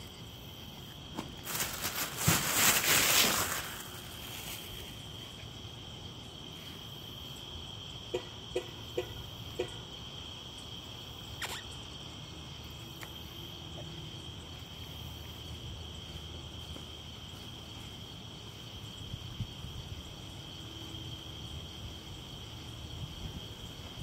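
Night insects trilling steadily on one high pitch throughout. A loud burst of noise comes about two to four seconds in, and a few short clicks follow later, four in quick succession around eight to ten seconds in.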